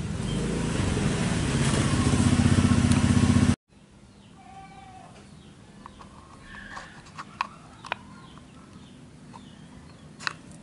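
A motor vehicle engine running steadily and growing louder, cut off abruptly about three and a half seconds in. After that, quiet outdoor background with a few faint chirps and several sharp clicks.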